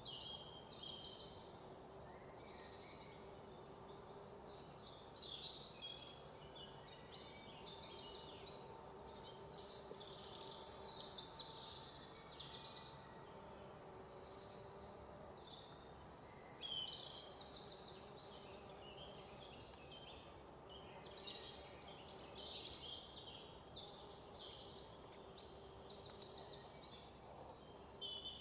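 Forest ambience: several birds calling and singing at once, with many quick trills of rapidly repeated high notes, over a faint steady background hiss.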